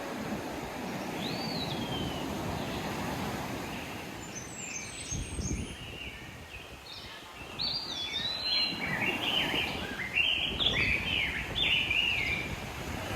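Ocean surf washing steadily, with birds chirping over it: one call about a second in, then a busy run of short chirps in the second half.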